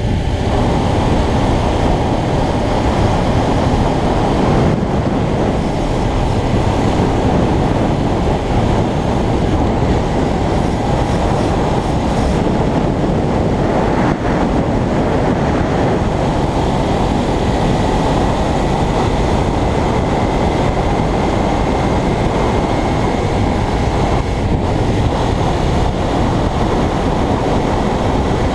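Suzuki GSX250R's parallel-twin engine through its standard exhaust, running steadily at cruising speed, mixed with wind and road rush.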